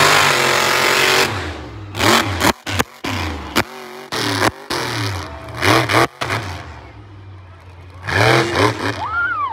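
Monster truck engine at full throttle, then a run of short, hard revs whose pitch climbs each time, broken by sudden cut-offs between them.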